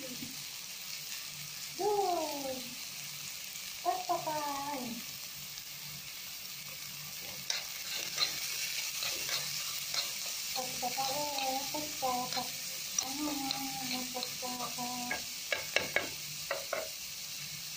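Chopped onions sizzling in hot oil in a kadai while being stirred, the spatula scraping and clicking against the pan more often in the second half. Two short calls that fall in pitch come about two and four seconds in, with more pitched vocal sounds in the middle.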